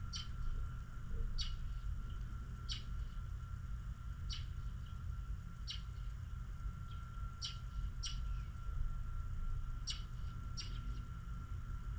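A small bird giving short, sharp chirps, about nine spaced roughly a second and a half apart, over a steady low rumble and a faint constant high tone.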